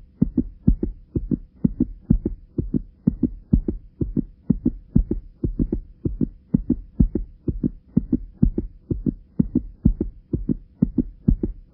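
Outro backing track: a steady, bass-heavy pulsing beat of about three thumps a second over a faint held tone.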